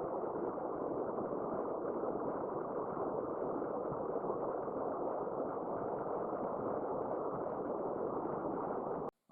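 Steady rushing of a mountain river flowing over rocks, a constant low, even roar of water; it cuts off suddenly just before the end.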